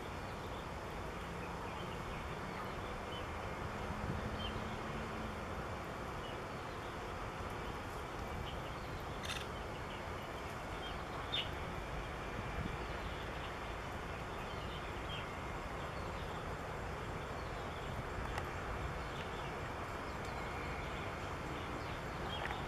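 Steady outdoor background noise, with a few faint, short bird chirps scattered through it, one near the middle.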